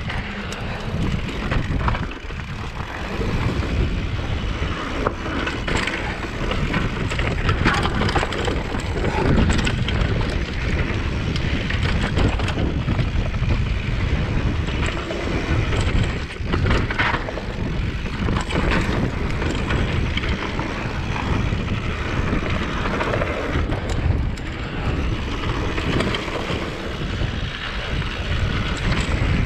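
Mountain bike riding fast down a dirt singletrack: wind rushing over the camera microphone, tyres on loose dirt and the bike rattling over bumps.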